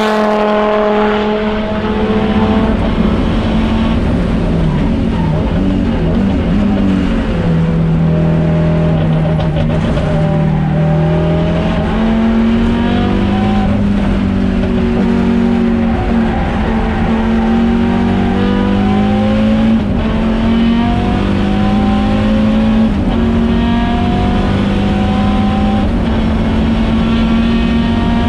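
Audi quattro S1 Group B rally car's turbocharged five-cylinder engine at racing pace. Its pitch falls early as the car slows and shifts down, then climbs and drops again and again as it accelerates through the gears.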